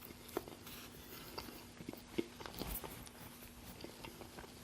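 Soft close-miked chewing: scattered small mouth clicks and smacks over a faint steady hum.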